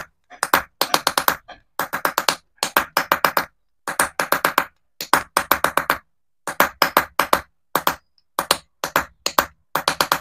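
A small hammer tapping a chasing tool into a pitch-filled silver vessel, chasing a design into the metal. The sharp taps come in quick runs of several a second, with short pauses between runs as the tool is moved along.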